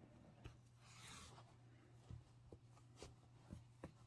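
Near silence with faint handling sounds: yarn being drawn and rubbed through crocheted fabric as a toy is stitched together, with a soft swish about a second in and a few faint ticks.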